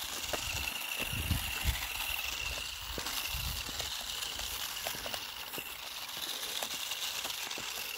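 Toy RC off-road car running, its small electric drive motor giving a steady high whine, with light clicks and rattles from the plastic body and wheels and a few low rumbles.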